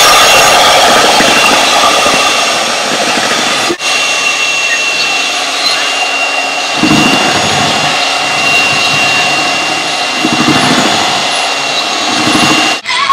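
Electric hand mixer running steadily in a bowl of cake batter: an even motor whir with a high whine, breaking off briefly twice. There are a few duller knocks as the beaters work against the bowl.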